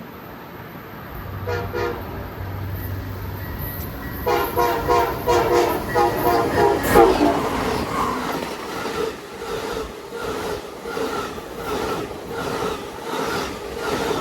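Locomotive air horn sounding a short toot, then a longer pulsing blast a few seconds later, as a train approaches and passes; after the horn, the rhythmic clatter of wheels over the rail joints.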